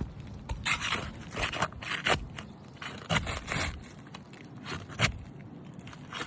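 Asphalt roof shingles being pried up with a flat snake tool: irregular scraping and crackling strokes as the tool works under the brittle, tightly bonded shingles to break their seal.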